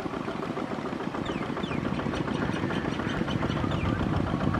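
Kubota RT155 single-cylinder diesel engine of a two-wheel walking tractor running under load as its cage wheels work through a flooded rice paddy, a fast, even chugging that grows a little louder from about two seconds in.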